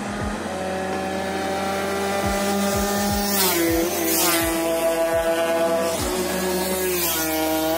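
Two motorcycles pass at speed, one about three and a half seconds in and one about seven seconds in. Each engine note drops in pitch with a rush as it goes by.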